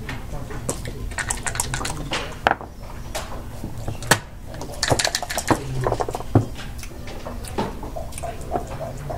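Plastic backgammon checkers clacking as they are moved and set down on the board, with quick rattling runs of dice and single sharp clicks, one of them a game clock button pressed about four seconds in.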